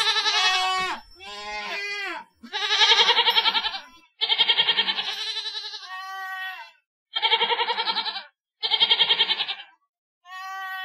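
Goat bleating: seven bleats in a row with short gaps between them. Most have a quavering, wavering tone, and the longest, near the middle, lasts about two and a half seconds.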